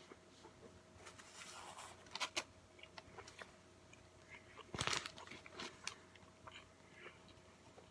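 A man chewing a mouthful of Burger King Rodeo King burger close to the microphone, with soft crunches from the onion rings in it. There is one louder, sharper noise about five seconds in.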